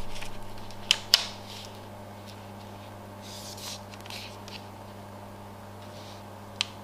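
A clear plastic sheet being handled and pressed against a whiteboard: two sharp taps about a second in, soft rustles in the middle, and another tap near the end, over a steady low hum.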